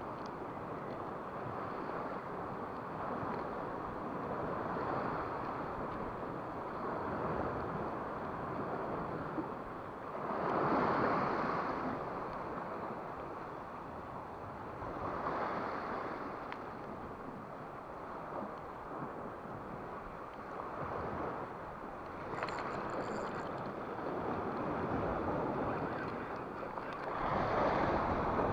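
Small sea waves washing against shoreline rocks, swelling and falling back every few seconds, with wind on the microphone.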